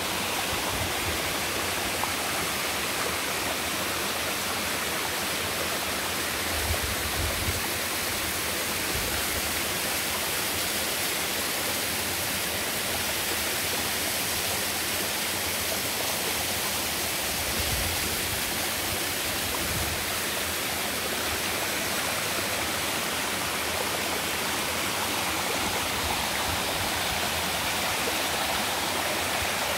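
Mountain waterfall: water falling and rushing in a steady, even noise, with a brief low bump about seven seconds in.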